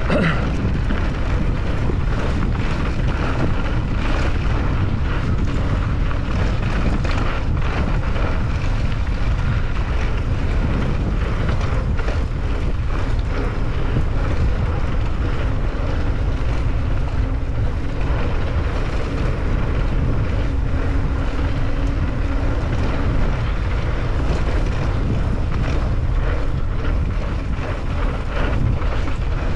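Steady wind buffeting the action camera's microphone at riding speed, over the rumble and knocks of a bike's tyres on a bumpy dirt track.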